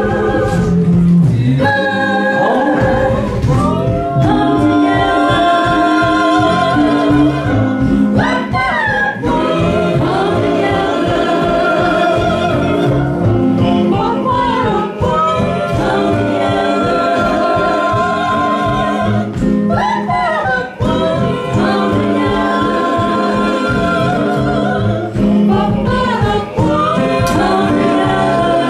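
A choir of several voices singing a song in harmony with a small live band: plucked upright bass and acoustic guitar.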